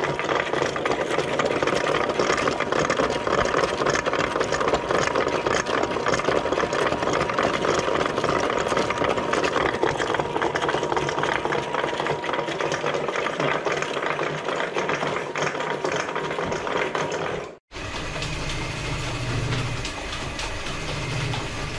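A machine running steadily with a dense, fast clatter. It cuts out briefly near the end and comes back as a lower, steadier hum.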